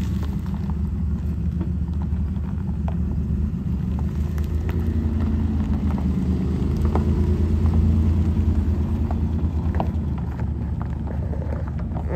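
2008 Chevrolet Impala LS's 3.5-litre V6 running with a steady low hum while the car pulls away over gravel, with scattered light clicks above the engine sound; it grows a little louder about two-thirds of the way through.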